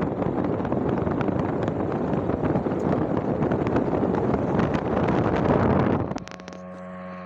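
Heavy wind buffeting on the microphone, which cuts off suddenly about six seconds in, leaving a quieter steady hum with a few even tones.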